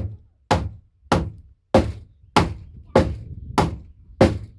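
Hammer striking wood in a steady run of blows, about eight of them, a little more than one and a half a second, each with a short ringing decay as a board of the porch door header is driven flush.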